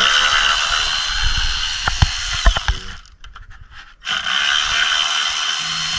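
Milwaukee cordless electric ratchet running in two bursts, backing out the upper intake plenum bolts. Its whine runs for about two and a half seconds, winding down as the trigger is released, with a few sharp knocks near the middle. It starts again about four seconds in.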